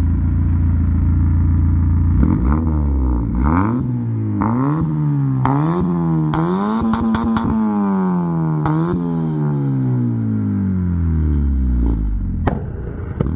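Honda sedan's exhaust, running without a catalytic converter and with a large intermediate resonator and a sport tailpipe, idling and then revved: several quick blips, then a longer rev held for a few seconds before the pitch falls slowly back to idle.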